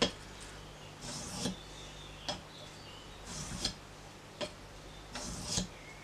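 Knife blade scraping across the fine side of an oiled bench stone in single sharpening strokes: three scrapes, about two seconds apart, each rising to a sharp click as the stroke ends, with a lighter click between strokes.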